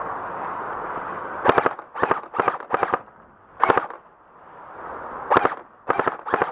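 Airsoft guns firing short rapid bursts, about eight in five seconds: four in quick succession, a single one, then three more.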